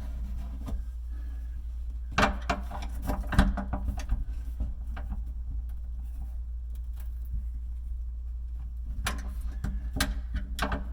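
Sharp clicks and knocks of hand work on a countertop miter draw bolt, in two short flurries, about two seconds in and again about nine seconds in, over a steady low hum.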